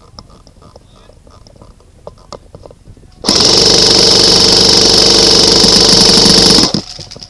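Airsoft rifle firing one long full-auto burst of about three and a half seconds, starting about three seconds in and cutting off suddenly: suppressing fire. The burst is far louder than the quiet handling clicks before it.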